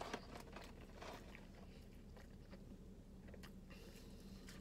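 Faint chewing of food, with a few soft mouth clicks and smacks, most of them in the first second.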